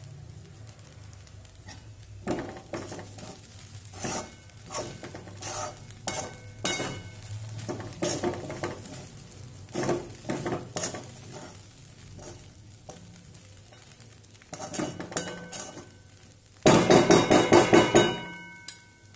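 Steel spoon stirring and scraping poha in a metal kadhai, with irregular clinks and scrapes over a faint sizzle. Near the end comes a quick run of about ten sharp, ringing metal clinks of spoon against pan, the loudest part.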